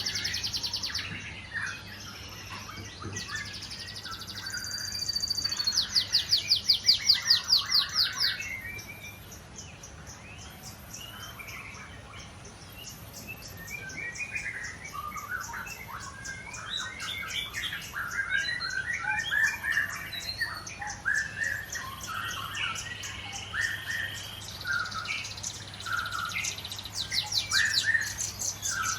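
Several songbirds chirping and singing over one another, with a loud, fast rattling trill about five to eight seconds in and a long run of quick ticking notes through the middle.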